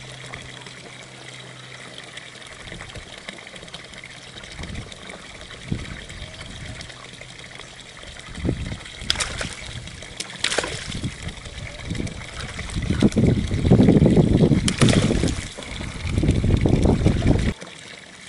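Hooked tilapia thrashing and splashing at the pond's surface as it is played in toward the landing net. A few sharp clicks come first, then loud splashing over the last several seconds that stops suddenly.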